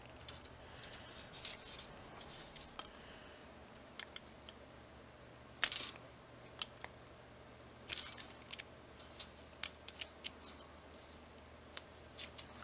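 Scattered small clicks and taps of a metal wrench working a cable fitting tight onto a braided wiring loom, the loudest click about six seconds in and a run of lighter ones a couple of seconds later.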